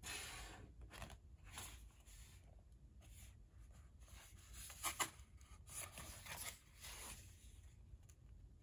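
Faint rustling and scraping of mouse pad packaging being handled and opened: a string of short strokes, the loudest two sharp ones about five seconds in.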